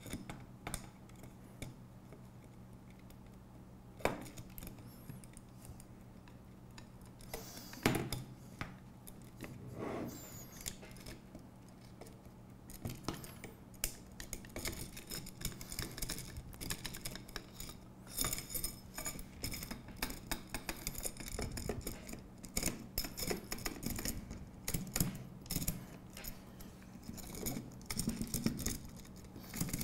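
Aluminium extrusion and metal brackets of a robot chassis being handled and fitted together. A few sharp knocks in the first third, then a long run of small metallic clicks and rattles in the second half.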